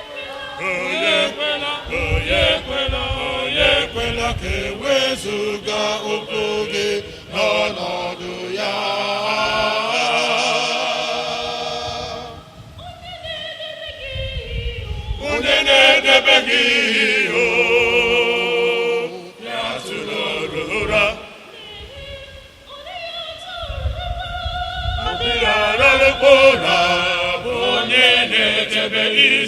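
Church choir singing, starting at the outset and dropping back briefly twice before swelling again.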